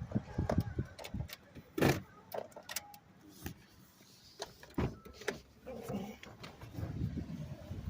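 Irregular clicks, knocks and rustling as someone gets out of a car: door latch, door and handling noise. A low rumbling noise builds near the end.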